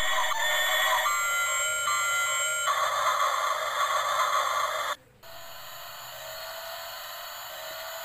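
Tinny electronic sound effects and melody from a battery-powered toy's small speaker, with steady beeping tones that change every second or so; it cuts off suddenly about five seconds in and goes on more quietly.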